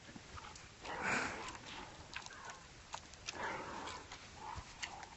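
A cat making two short breathy sounds, about a second in and again about three and a half seconds in, with scattered light clicks between them.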